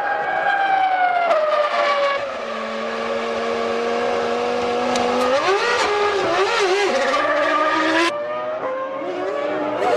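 Formula One V10 race car engines at high revs: one note falls for the first two seconds as a car slows, then holds steady. From about five seconds in several engine notes rise and waver together, and after an abrupt change at about eight seconds an engine note climbs again.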